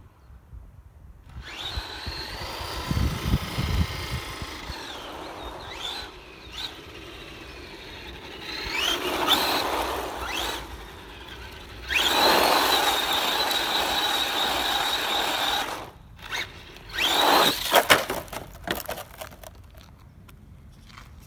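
Brushless electric motor and 4WD drivetrain of a Tamiya TB-01 Levant XB radio-controlled buggy whining in several bursts of hard acceleration, the pitch rising and then holding high, with tyres hissing on rough asphalt. A few sharp knocks near the end as the car tumbles onto its roof.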